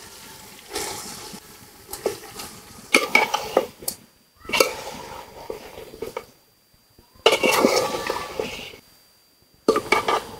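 Metal spatula scraping and knocking against a cooking pot as chicken pieces are stirred into a fried spice paste. It comes in several short bouts with brief pauses between.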